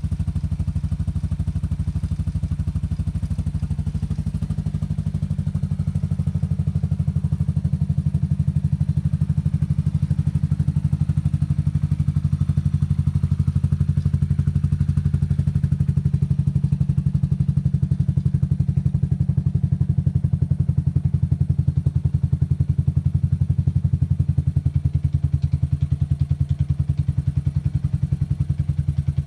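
2008 Buell Blast 500's single-cylinder engine idling steadily, an even low pulse with no revving.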